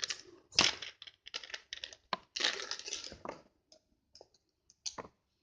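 Paper handled and worked by hand: irregular bursts of rustling and crinkling with a few sharp clicks.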